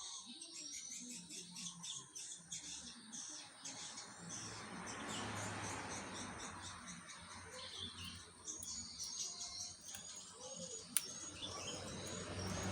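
Small birds chirping repeatedly in short high notes, over a faint low hum.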